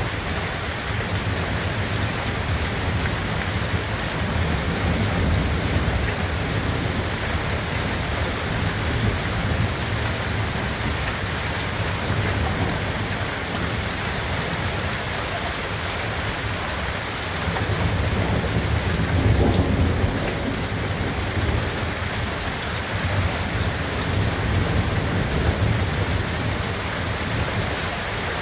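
Thunderstorm: rain falling steadily, with low rolling thunder that swells and fades several times, loudest about two-thirds of the way through.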